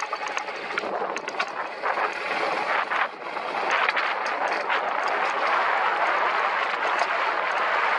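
Alpine coaster sled running down its tubular steel rails, wheels rattling and clicking, then a louder steady rolling rush from about four seconds in.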